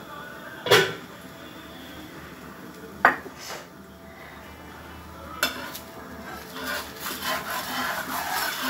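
Three sharp clicks, spread out, over a faint sizzle on the dosa griddle; from about seven seconds in, a metal spatula scrapes across the iron griddle as it slides under the uttapam.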